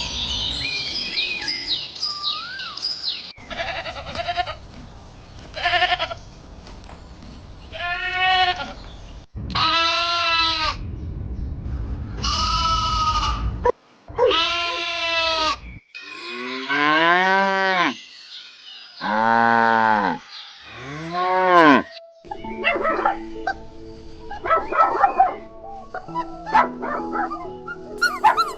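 Farm livestock calling: a run of separate bleats, followed by three longer, lower calls that rise and fall in pitch, with bird chirps in the first few seconds.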